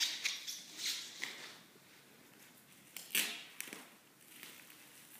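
Cardboard-and-paper-wrapped box being handled: short bursts of rustling paper and cardboard in the first second or so, then a sharp knock about three seconds in as the box is set down on the floor, followed by a few light taps.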